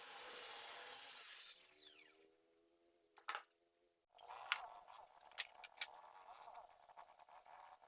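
A power tool runs for about two seconds, then winds down with a falling whine. After a short pause comes a fainter, steady noise with several sharp clicks.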